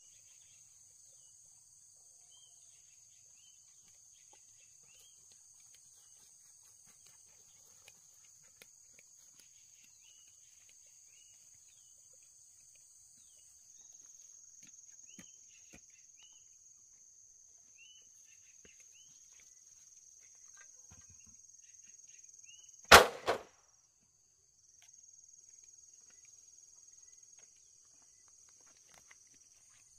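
Faint, steady high-pitched drone of insects, with faint bird chirps over it. About 23 seconds in there is one loud, sharp knock, quickly followed by a smaller second one.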